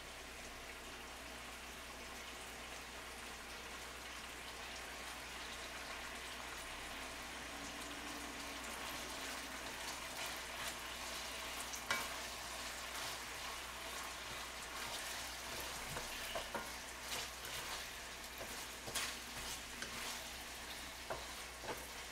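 Rice cakes sizzling steadily in oil and sauce in a frying pan. From about halfway there are scattered sharp clicks and knocks as the pan is stirred with a wooden spatula.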